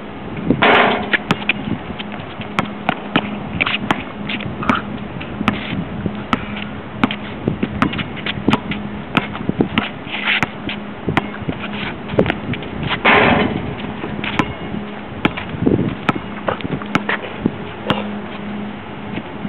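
A basketball being dribbled and bounced on an outdoor hard court: irregular sharp bounces and thuds, with a few short bursts of noise and a steady low hum underneath.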